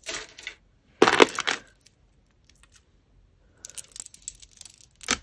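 Costume jewellery clinking and rattling as a hand rummages through a tub of beads, chains and metal pendants. Several short rounds of clinking, the loudest about a second in, then a sharp click near the end.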